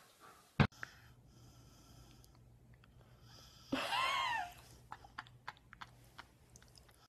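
A single short pitched animal call about four seconds in, rising then falling. It sits over a faint low steady hum, with a sharp click near the start.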